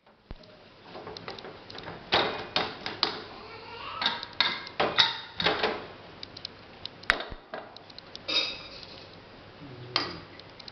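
Aluminium pressure cooker lid being twisted off the pot and lifted away, a quick run of metal clicks and clanks, then a metal ladle knocking against the pot near the end.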